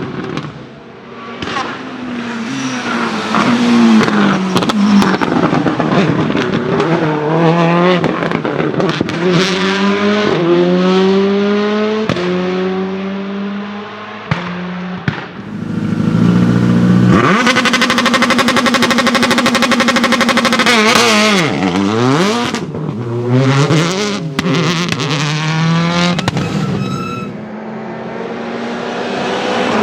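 Citroën Xsara WRC rally car's turbocharged four-cylinder engine accelerating hard, revs climbing and dropping through repeated gear changes, with sharp anti-lag pops and bangs. About halfway through it holds high revs steadily for a few seconds, then the revs fall away sharply.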